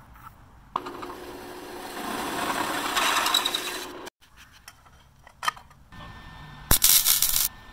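A drill press boring through a metal plate, a steady machine sound that grows louder before cutting off about four seconds in. Then scattered clicks, and near the end a short loud crackling hiss of stick arc welding on the plate.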